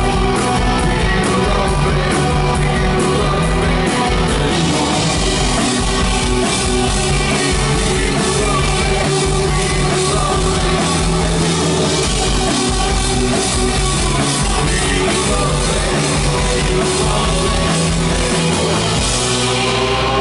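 A live rock band playing loud: electric guitars and a drum kit, with held guitar notes over a steady beat.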